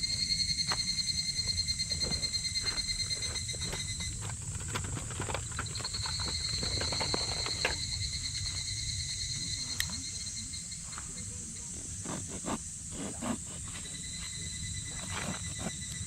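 A high, pulsing animal trill lasting about four seconds, repeated three times, over a steady high-pitched buzz of outdoor wildlife. Scattered short clicks come through, mostly in the second half.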